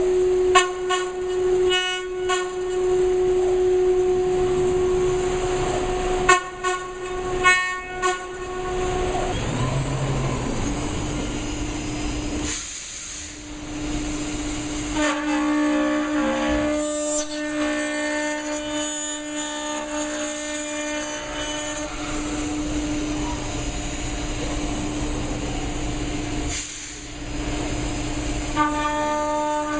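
4-axis CNC machining centre working an aluminium profile: the spindle whines at a steady pitch, with a few sharp clicks in the first eight seconds. About ten seconds in, the whine drops to a lower steady pitch and holds there.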